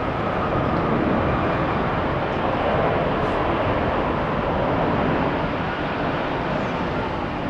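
Boeing 777 jet engines making a steady rushing noise that swells slightly about a second in, with wind rumbling on the microphone.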